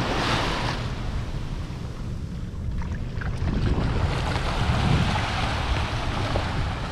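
Small waves washing up a sandy shore, with wind rumbling on the microphone; the surf swells briefly in the first second and again about four to six seconds in.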